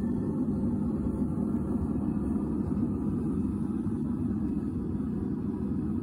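Propane-fired stainless steel forge burning steadily: an even, low-pitched rush of burner and flame noise that does not change.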